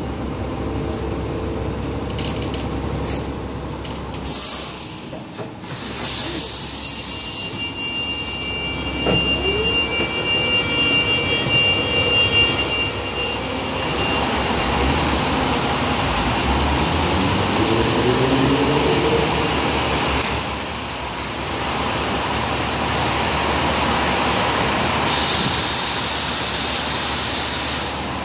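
Double-decker bus pulling in and stopping, with engine and road noise, then engines running and revving at a bus terminus. Several sharp air hisses are heard, a couple early on and a long one near the end, along with a high steady tone for a few seconds in the middle.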